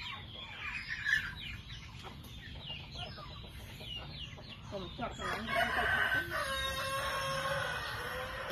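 Chickens clucking in short quick calls, then a rooster crows once, a long call of about three seconds starting about five seconds in.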